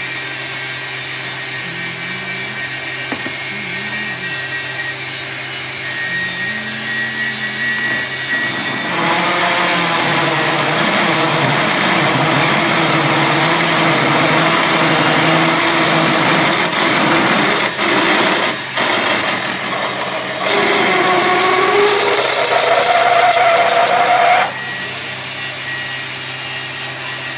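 Manual metal lathe running, then about nine seconds in a drill fed from the tailstock starts cutting into the centre of the spinning metal wheel blank with a loud, harsh cutting noise. The cutting breaks off briefly around eighteen seconds, resumes with a rising squeal, and stops a few seconds before the end, leaving the lathe's steady hum.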